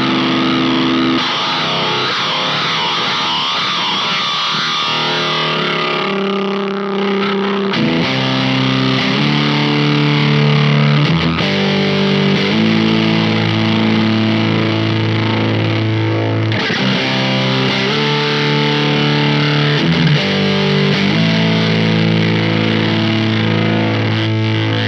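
Distorted electric guitar chords played through an Intensive Care Audio Vena Cava Filter pedal, changing every second or so. A wavering sweep is heard near the start, and the tone goes dull for several seconds before brightening again as the pedal's knobs are turned.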